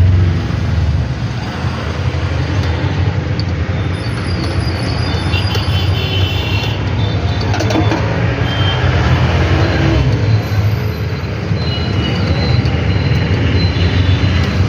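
Bajaj Maxima auto rickshaw's single-cylinder engine running steadily with a fast even pulse. It still carries the timing-chain rattle ('kach kach') that the tensioner adjustment has not cured.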